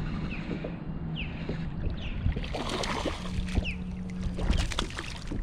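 Kayak on choppy water with a steady low wind rumble on the microphone. About two and a half seconds in comes a brief burst of splashing or rustling, and short falling high chirps sound roughly once a second.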